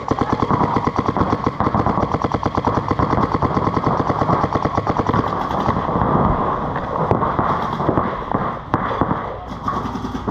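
Paintball markers firing reusable rubber reballs in rapid streams of shots, many per second, for about six seconds, then breaking up into scattered shots and impacts.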